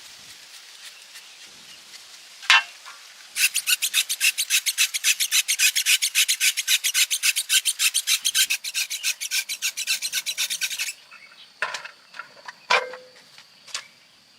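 Quick back-and-forth rasping strokes, like a hand file or stiff brush worked over a hard surface, about seven a second for roughly seven seconds, then stopping sharply. A single sharp knock comes just before them and a few separate knocks follow.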